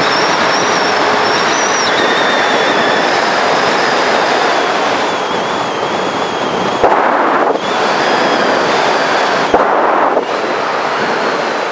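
Loud, steady rush of wind over the microphone of a mountain bike descending a paved mountain road at high speed, with a thin, wavering high whine over it. Two sharp knocks, about seven and nine and a half seconds in, each set off a brief louder gust.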